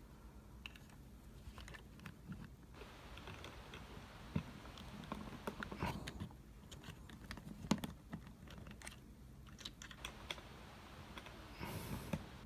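Plastic parts of a Transformers action figure clicking and snapping faintly as they are pushed and pegged into place during its transformation into car mode, scattered clicks through the whole stretch.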